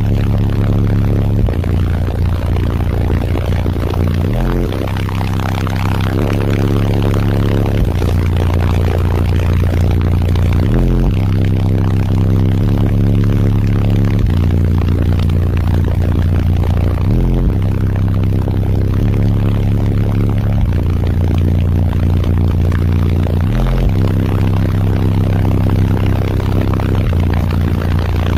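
Very loud car-audio bass from six Resilient Sounds Platinum 15-inch subwoofers filling the cabin: deep bass notes held for a couple of seconds each, stepping from pitch to pitch with short slides between, under a harsh noisy haze.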